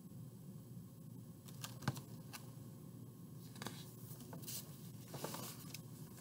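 Pages of a large hardback picture book being handled and turned: a few faint light clicks and taps from about a second and a half in, then soft paper rustling about four to five and a half seconds in.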